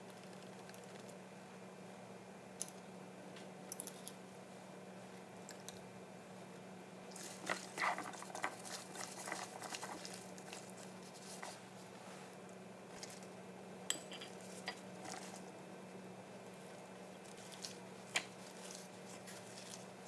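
Sliced cucumbers being hand-mixed with chili seasoning in a ceramic bowl: wet squishing and rustling, loudest for a few seconds about a third of the way in, with a few sharp clicks of food and hands against the bowl. A faint steady low hum runs underneath.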